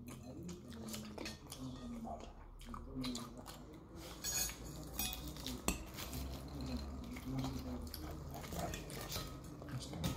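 Metal fork clinking and scraping on a ceramic plate, with one sharp clink a little over halfway through.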